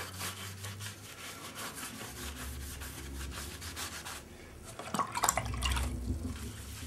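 Sponge rubbing and scrubbing along the inside of a polyester chop-strand-mat fibreglass mould half, washing off the PVA release agent. A louder stretch of scraping and knocks comes about five seconds in.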